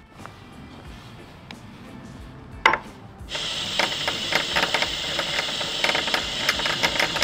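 Cordless drill boring into a metal bar. After a few quiet seconds of handling with one sharp click, the drill runs under load from about three seconds in: a steady, high cutting noise from the bit in the metal, with fast, uneven chattering.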